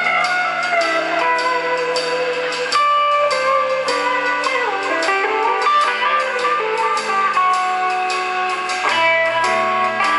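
Live blues-rock band playing loud amplified music: electric guitars carry sustained, bending lead notes over held bass notes and a steady drum beat.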